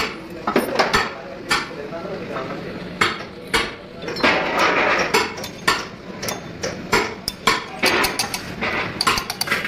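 Irregular metallic knocks and clinks of tools striking and handling the steel parts of an old Hino truck manual gearbox being repaired, coming quicker toward the end, with people talking in the background.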